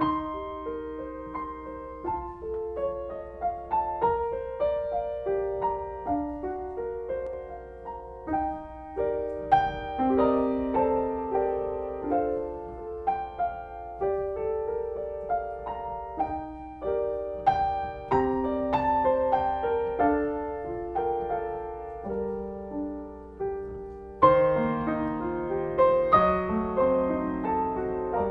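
Solo piano playing a gentle Christmas carol arrangement, with chords and melody notes that strike and fade; it grows louder about 24 seconds in.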